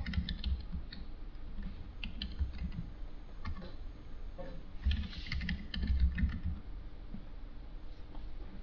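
Typing on a computer keyboard: a username and then a password entered at a login prompt. Two runs of key clicks with dull low knocks beneath, the first in the opening three seconds, the second about five to six and a half seconds in.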